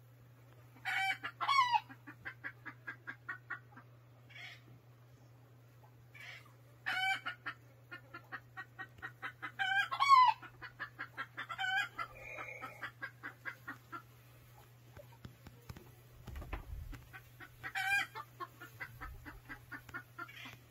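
Chickens cackling: four loud squawks, each followed by a run of quick clucks at about five a second.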